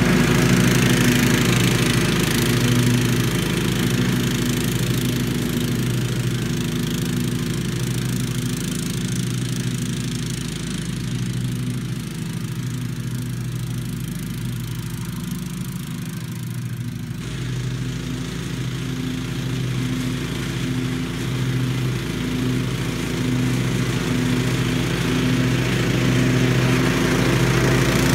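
A 1996 Giant Mow lawn mower's engine running steadily while it mows, on freshly fitted Kevlar deck belts. It fades and dulls as the mower moves away across the lawn, then grows louder as it comes back near the end.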